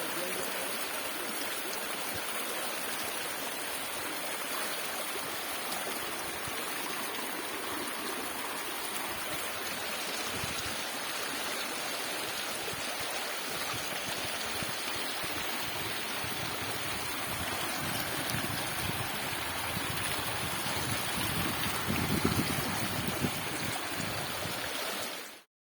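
Water from a low, gently cascading forest waterfall rushing steadily over rocks and pebbles, briefly a little louder a few seconds before the end, then cut off suddenly.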